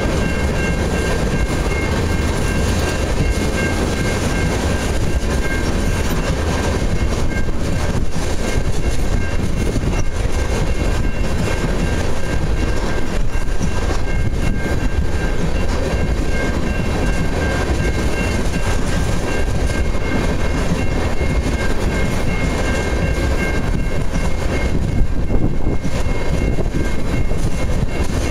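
Tank cars of a freight ethanol train rolling past on the rails: a steady rumble of wheels on track with clickety-clack over the rail joints. Faint, steady high-pitched ringing tones run above the rumble and fade out near the end.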